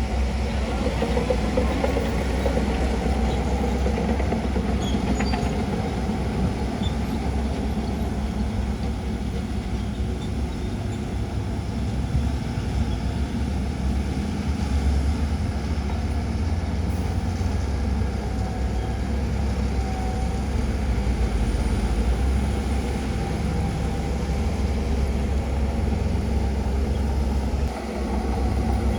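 Bulldozer diesel engine running steadily, with a short dip in level near the end.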